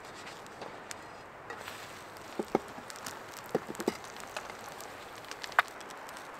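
Wood fire crackling under a frying pan of eggs: a steady hiss broken by scattered sharp clicks and pops. Near the end, a metal spatula clinks loudly once against the pan.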